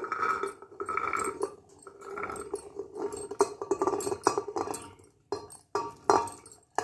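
Soaked chickpeas scooped by hand from a glass bowl and tipped into an aluminium pressure cooker: a run of small clicks and rattles, thinning to a few separate clicks near the end.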